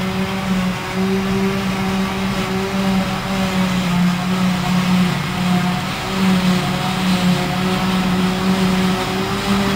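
Claas Jaguar self-propelled forage harvester running steadily while chopping grass and blowing it out of its spout into an articulated truck's trailer driving alongside, the truck's engine mixed in. A constant machine drone with a steady low hum.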